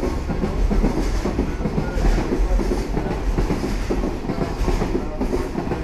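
Container wagons of a passing freight train rolling by: a steady, loud rumble with the wheels clacking over the rail joints.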